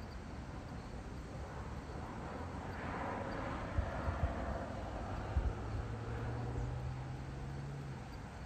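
Evening countryside ambience with a distant vehicle passing. A hazy swell rises and fades over a few seconds, with a low engine hum underneath that drops away near the end.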